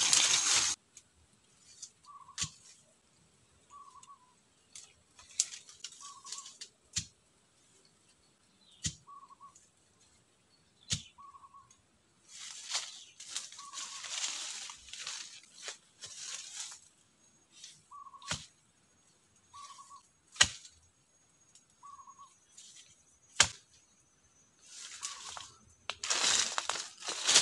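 Feet and hands rustling through dry leaf litter and forest undergrowth in several bouts, broken by about seven single sharp cracks of sticks. Behind it, a short whistled call repeats every one to two seconds.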